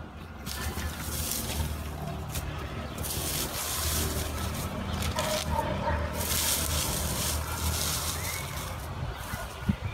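Hands scraping and sweeping loose dry soil and grass into a shallow grave, in repeated rustling bursts, over a low steady hum.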